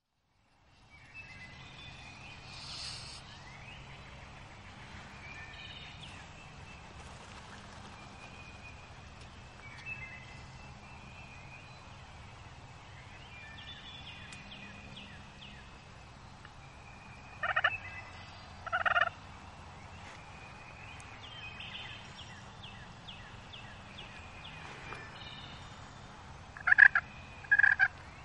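Wild turkey calls: two short loud calls about two-thirds of the way in and two more near the end, over steady high chirping of songbirds.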